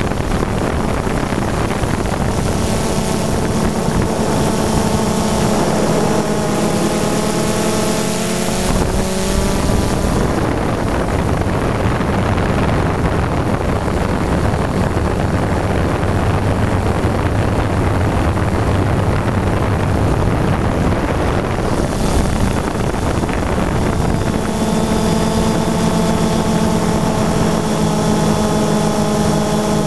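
DJI Phantom 2 quadcopter's motors and propellers whirring, picked up by the camera riding on the drone, with wind buffeting the microphone. A steady hum of several tones for about the first ten seconds gives way to a broader rush, and the tones return near the end.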